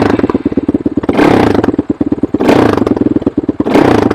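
Suzuki LTR 450 quad's single-cylinder four-stroke engine running, blipped with the throttle four times so the revs rise and fall about every second and a bit.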